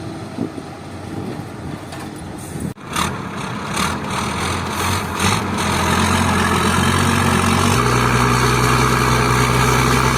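Heavy truck engine running steadily, after a sudden break about three seconds in. The engine's low note changes about eight seconds in.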